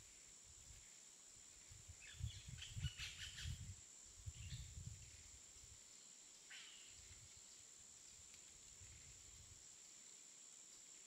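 Faint jungle ambience: a steady high insect drone under scattered bird chirps, bunched about two to five seconds in and once more near seven seconds. A low rumble comes and goes beneath.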